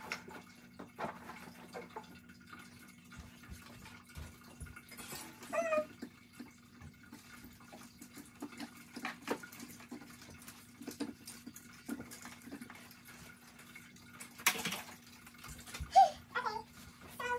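Scattered light knocks, clicks and rustles from someone moving and handling things in a room, over a steady low hum. A brief pitched sound comes about five and a half seconds in, a louder knock near the end, then two more short pitched sounds as the person comes close.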